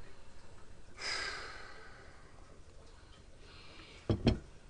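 A man sighs out heavily, a hissy breath about a second in, then gives a brief low grunt near the end.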